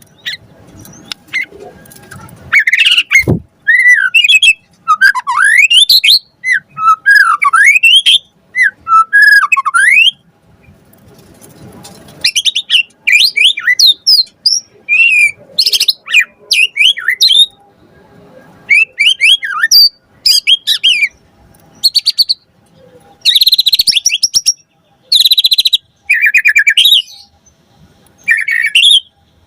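White-rumped shama singing in loud bursts of fast, varied phrases of sweeping whistles and warbles, with short pauses between bursts and a longer lull about ten seconds in.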